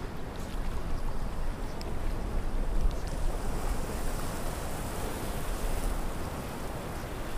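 Wind buffeting the microphone over small waves washing against jetty rocks: a steady, noisy wash with an uneven low rumble.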